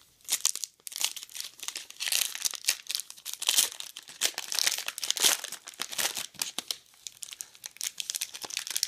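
Metallic foil trading-card pack being torn open and crinkled by hand: a run of crackling tears and crinkles, busiest in the middle.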